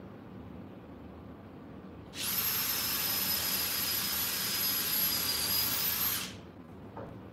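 Cordless drill running at one steady speed for about four seconds, starting about two seconds in, with a high motor whine as it drills into a block of wood.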